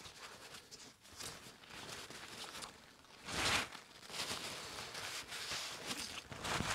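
Blue shop towel rustling and rubbing as it wipes a small metal gearbox shaft clean: soft, uneven strokes, the loudest about three and a half seconds in.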